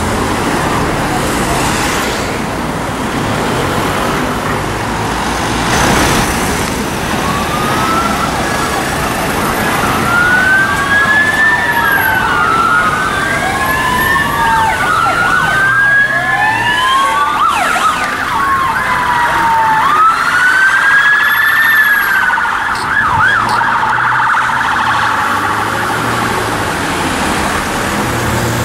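Two-tone police sirens from a response car and vans, several wailing at once and out of step, so the rising and falling sweeps overlap, over steady traffic noise. Near the end the sweeps turn quick, a yelp, before settling into a steady tone.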